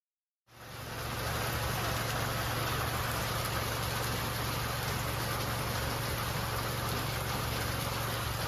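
A motor running steadily: a low hum under an even hiss, fading in about half a second in.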